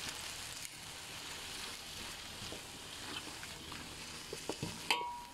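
Chicken, shimeji mushrooms and oyster sauce sizzling in a wok as a silicone spatula stirs them, with soft scrapes against the pan and one sharper clack near the end.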